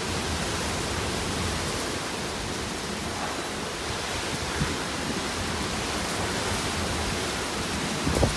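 Heavy storm rain pouring down with strong wind, a steady rushing hiss. A couple of short knocks, the louder one near the end.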